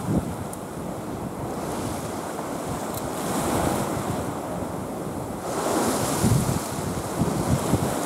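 Sea waves washing against the shore, swelling and falling back, with wind gusting on the microphone.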